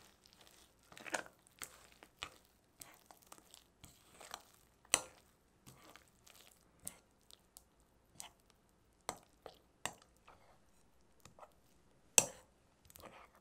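Irregular kitchen handling sounds: light taps, clicks and short scrapes, with a sharper knock about five seconds in and the loudest one near the end.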